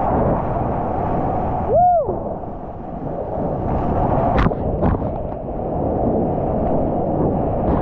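Ocean surf and wind make a loud, steady rumbling noise. About two seconds in there is one brief whistle-like tone that rises and falls, and near the middle there are two sharp clicks.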